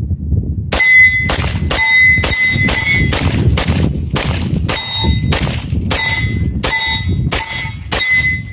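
A Beretta M9A3 9mm pistol fires a rapid string of shots, about two a second, starting just under a second in. A short metallic ring follows many of the shots, and wind rumbles on the microphone underneath.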